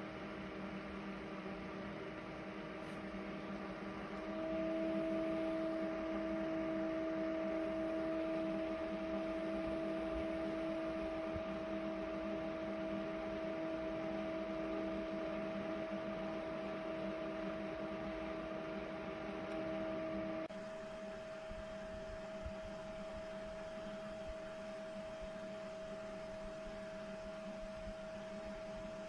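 Small desk air-cooler fan running with a steady, humming whir. It gets louder about four seconds in, and the tone shifts abruptly about two-thirds of the way through.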